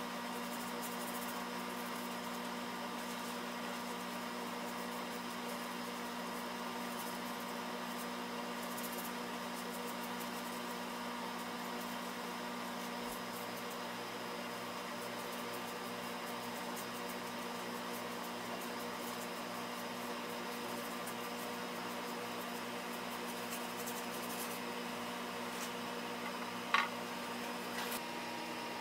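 Steady electric hum of running shop machinery, a constant drone with several fixed tones. A single brief sharp click sounds near the end.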